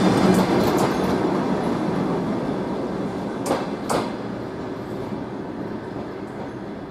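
Passenger train of Ukrainian coaches rolling away after its last coach passes, its wheel-on-rail noise fading steadily. Two sharp clacks come close together about halfway through.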